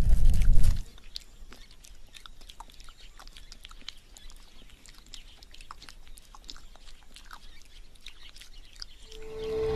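A red kangaroo grooming, licking and nibbling at its fur, heard as faint, irregular wet clicks and crackles. A muffled low rumble cuts off about a second in, and soft music fades in near the end.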